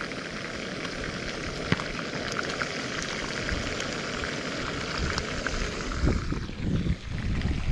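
Bacon-wrapped trout frying in a pan on a camp stove: a steady sizzle with scattered small pops of fat. Low rumbles of wind on the microphone come in near the end.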